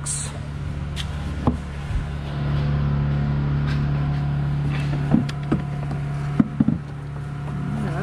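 A steady low mechanical hum with a few sharp knocks and clicks of a plastic airbox being handled and pushed into place in a van's engine bay, the clicks bunched near the end.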